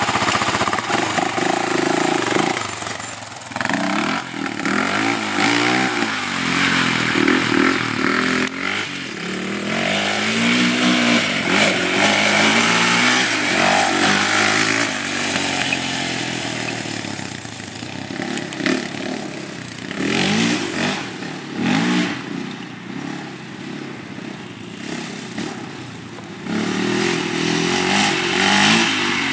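Honda 400EX sport quad's single-cylinder four-stroke engine being ridden hard, revving up and dropping back again and again.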